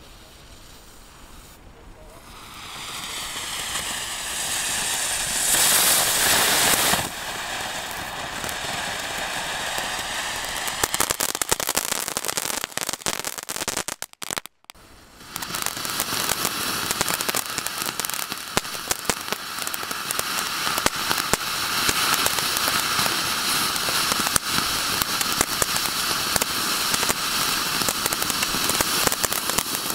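Ground firework fountains hissing steadily as they spray sparks, with scattered crackles. The hiss builds up a couple of seconds in and is loudest for a moment around six seconds. It stops briefly near the middle, then another fountain hisses and crackles.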